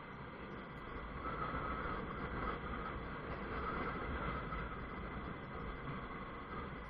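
Honda CBF 125 motorcycle on the move, its single-cylinder engine running under steady wind and road noise. It grows louder about a second in, then eases slightly near the end.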